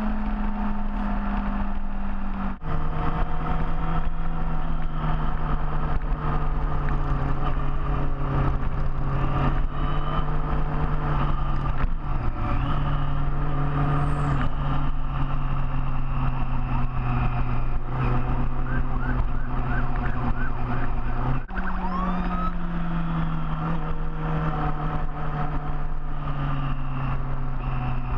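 Big motorcycle engine running under way, a steady engine note that drops sharply in pitch about two and a half seconds in, as at a gear change, then jumps up again about 21 seconds in and sinks slowly.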